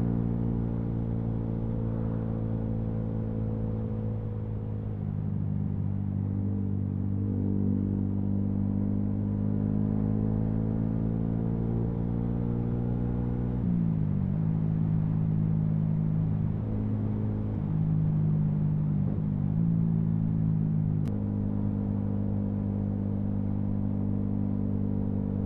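Yamaha MT-125's single-cylinder four-stroke engine running steadily on the move. The engine note rises slowly, then drops sharply about halfway through, and there is a short click near the end.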